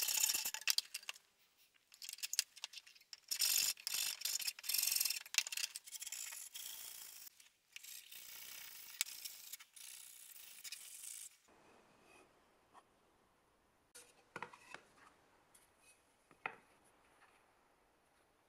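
Hand file rasping back and forth on the curved cut edge of a wooden board, in uneven runs of strokes, followed by a steadier scratching of hand sanding. About eleven seconds in it stops, leaving only a few faint knocks of the board being handled.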